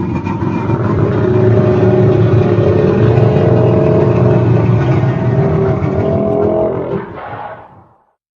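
Sound-effect roar for a Yutyrannus dinosaur: one long, loud, low call with a wavering pitch that fades out about seven seconds in.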